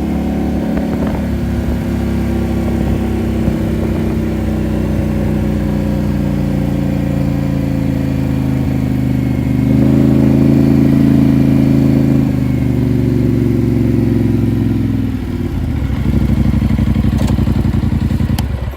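Polaris Sportsman 850 ATV's twin-cylinder engine running loud through a Big Gun slip-on exhaust, holding steady, picking up to a higher, louder note about halfway through, easing off briefly near the end, then coming back up.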